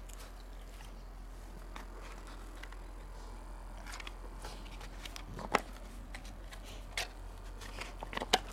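Golden retriever chewing a dried pig ear: irregular crunches and cracks of the tough cartilage, sparse at first and more frequent from about halfway, with the sharpest snaps in the middle and near the end.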